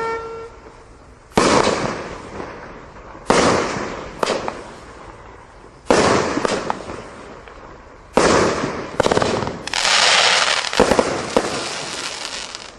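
Consumer firework cakes and barrages firing: a series of about eight sharp aerial bangs, irregularly spaced and each trailing off. A stretch of dense hissing crackle comes about ten seconds in.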